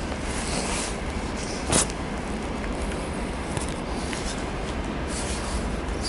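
Footsteps crunching in deep fresh snow, a few scattered crunches with one louder one just under two seconds in, over a steady low rumble.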